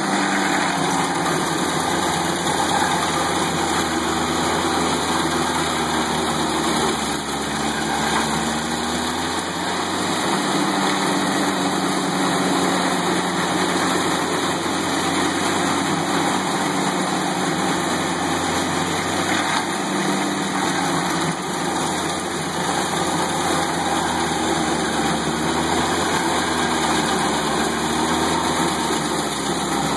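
Towable stump grinder's engine running steadily under load while its cutter wheel grinds into a tree stump. The engine pitch sags and recovers gently a few times as the wheel is swung across the stump.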